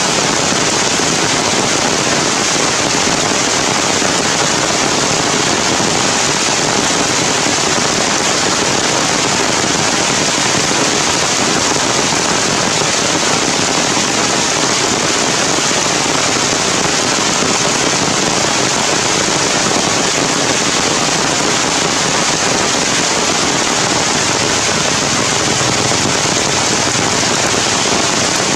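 Heavy rain falling steadily on forest foliage, a dense even hiss of drops with no letup.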